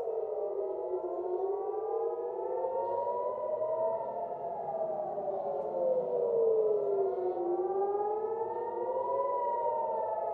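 Air raid sirens sounding a missile alert, several at once and out of step, each wailing slowly up and down in pitch over about six seconds.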